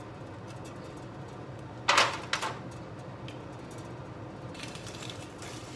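Metal kitchen tongs and a basting brush working a drumstick over a skillet of sauce: a short double clatter of utensils against the pan about two seconds in, with a few faint clicks, over a low steady hum.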